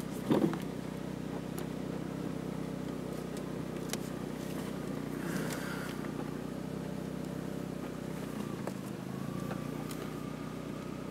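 Peugeot 306's engine running at low, steady revs as the car crawls slowly over soft grassy ground, heard from inside the car. A brief loud cry-like sound comes about half a second in.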